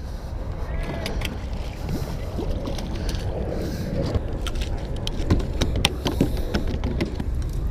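A small yellowfin croaker landed and flopping on wooden dock boards: a few sharp slaps and knocks in the second half, over a steady low rumble.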